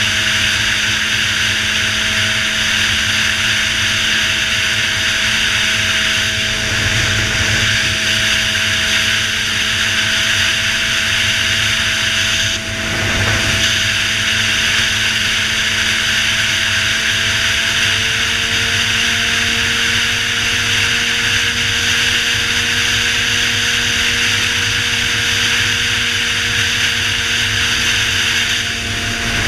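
Suzuki GSX-R 600 sportbike's inline-four engine running at a steady highway cruise, under a steady rush of wind on the microphone. There is a brief dip in level about thirteen seconds in.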